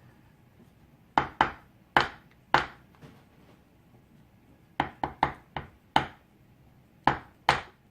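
Sharp knocks, about a dozen in three quick clusters, as the heavy steel padlock and its parts are tapped against a hard work surface.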